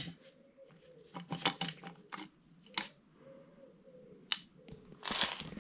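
Hand tools and small parts being handled on a workbench: a scattering of sharp clicks and light knocks, then a short scrape near the end.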